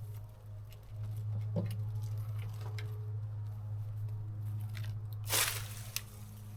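Brush and branches crackling and tearing, with one brief, louder rustling crunch about five seconds in, over a steady low hum.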